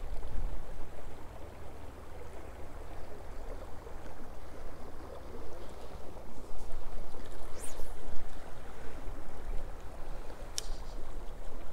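Steady rush of shallow river current flowing around a wading angler, with two brief faint ticks in the second half.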